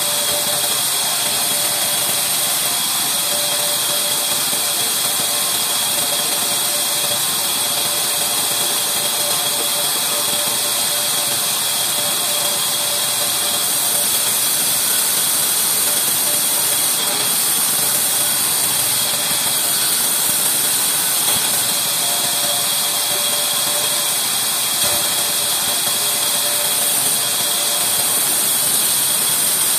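Large vertical band saw running steadily as it rips a weathered reclaimed beam lengthwise: a constant high-pitched hiss of the blade cutting through the old wood, with no let-up.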